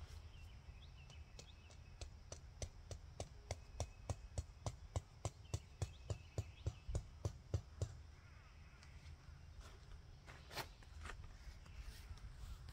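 A tent stake being pounded into the ground with a mallet: a run of sharp knocks, about three a second, getting louder before stopping, then one more knock a few seconds later.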